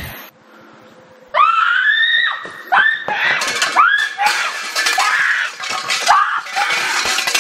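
A person screaming again and again, starting about a second and a half in: a run of high-pitched shrieks, each rising and falling in pitch.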